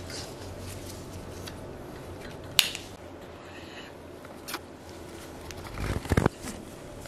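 Handling noise as a fabric dog muzzle is fastened and the dog is held. There is one sharp click about two and a half seconds in, a smaller click about two seconds later, and a few low thuds near the end, over a steady low hum.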